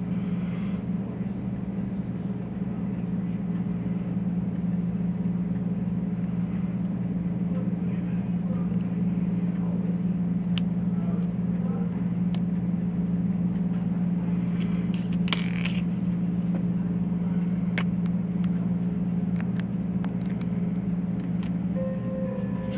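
Steady low mechanical hum, unchanging throughout, with scattered light clicks and a short rattle about fifteen seconds in.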